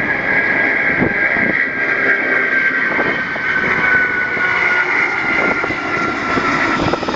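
Boeing 747's four jet engines at takeoff thrust as it climbs away just after liftoff: loud, steady jet noise with a high whine that slowly falls in pitch as the airliner passes.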